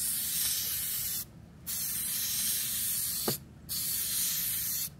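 3M Super 77 spray adhesive aerosol can spraying in three hissing bursts of about a second and a half each, with a short click at the end of the second burst.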